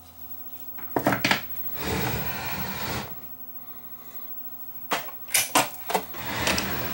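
Clicks and knocks from switching on and handling an AppleColor composite CRT monitor, with a rush of noise about two seconds in that lasts about a second, and another cluster of clicks and a shorter rush near the end.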